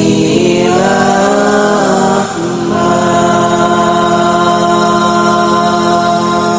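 Hadroh singers performing an Arabic sholawat: a winding melismatic vocal phrase that settles about two seconds in into one long held note.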